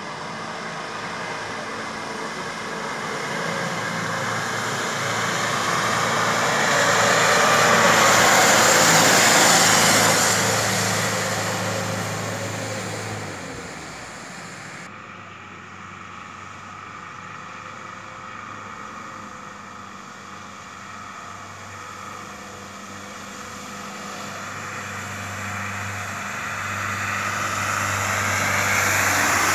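A Mahindra Thar 4x4 driving through a shallow stream: its engine runs steadily while the tyres churn up splashing, rushing water. The sound swells to its loudest about a third of the way in, drops sharply at a cut about halfway through, and builds again near the end as the jeep comes close.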